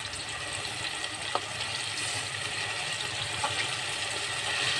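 Banana slices deep-frying in a wok of hot oil, a steady sizzle, with two faint clicks.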